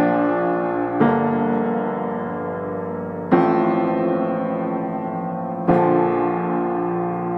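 Background music: slow piano chords, one struck about every one to two seconds and left to ring out.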